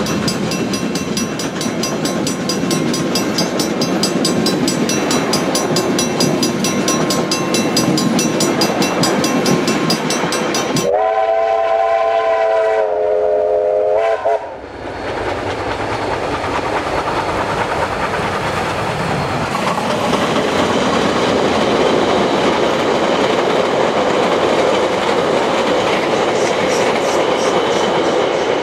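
Carriages of a steam train rumbling and clacking over a level crossing while the crossing bell rings rapidly. About eleven seconds in, a steam locomotive's whistle sounds several notes at once for about three seconds. Then the locomotive runs past working hard, its exhaust loud and steady.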